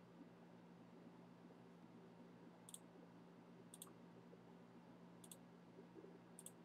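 Near silence: a low steady hum with four faint, sharp clicks spread about a second or more apart.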